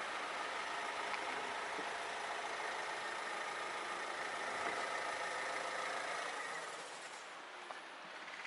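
A steady engine-like hum over a wash of background noise, easing off a little near the end.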